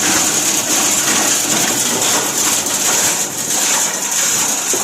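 Plastic scrap grinder running, a loud steady whirring hiss with an irregular clatter mixed in.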